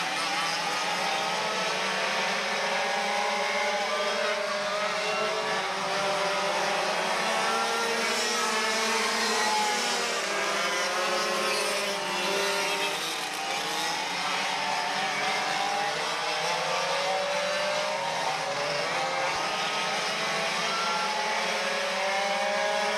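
A pack of two-stroke racing go-karts running at speed, many engines overlapping in wavering whines whose pitches rise and fall as the karts come past and pull away.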